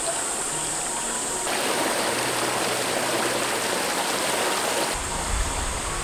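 Shallow mountain stream running over rocks: a steady rush of water that swells a little louder for a few seconds in the middle.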